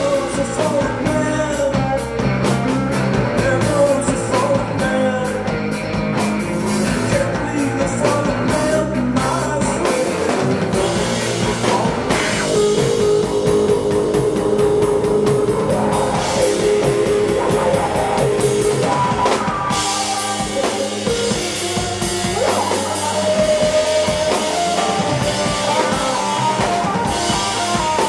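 Live rock band playing: drum kit, electric guitars and bass, with a sung vocal line.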